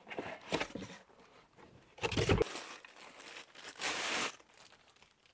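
Cardboard box and packing material rustling and scraping as a floodlight fixture is pulled out of its box. The rustles come in bursts, the loudest about two seconds in and another about four seconds in.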